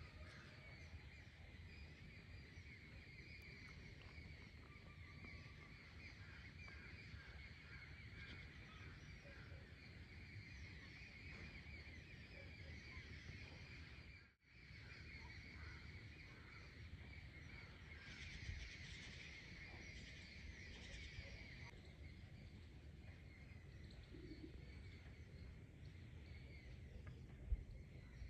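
Faint, continuous chatter of many small birds chirping together, over a low rumble of outdoor noise.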